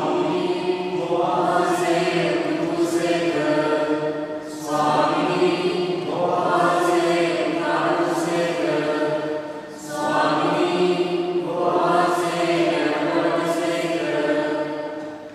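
A priest's voice chanting a liturgical prayer of the Mass on long held notes, in three phrases of about five seconds each with short breaks between them.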